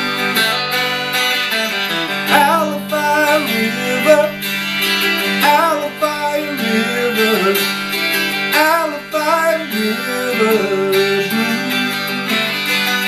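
Twelve-string electric guitar played through a small amp: a blues instrumental break, a melody with gliding notes over a steady low note.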